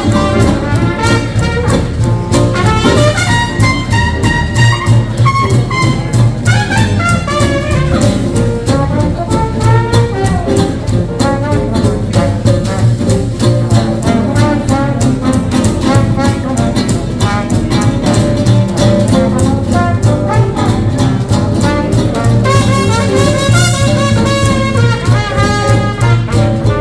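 Small hot-jazz swing band playing an instrumental passage: brass horn lines over a steady, driving rhythm section.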